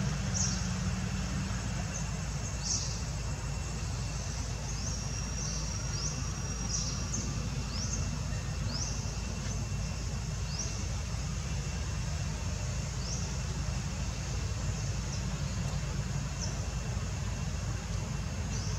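Outdoor ambience: a steady low rumble with short, high chirps every second or two and a faint steady high-pitched whine.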